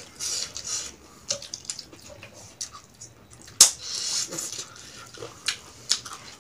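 Close wet eating sounds of people eating chicken and rice by hand: lip-smacking, chewing and small mouth clicks, with one sharp smack about three and a half seconds in.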